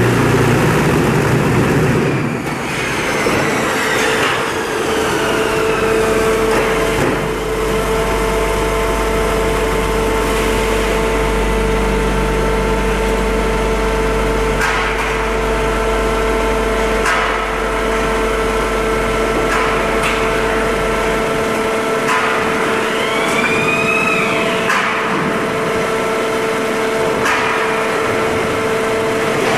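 Poyatos Novabloc concrete block production line running: a loud, steady machine hum with several held tones and a low rumble that stops about two-thirds of the way through. A few whines rise and fall, and there are occasional sharp knocks.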